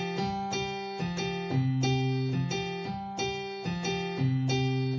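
Piano sound from an electronic keyboard playing a Latin exercise. The left hand plays a tumbao bass figure on C, F and G, while the right hand plays steady repeated chords in the role of a cowbell.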